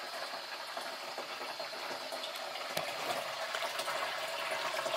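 Water from a garden hose running into an 8-gallon sprayer tank, a steady rushing with a faint tone that grows stronger toward the end. One sharp click about three seconds in.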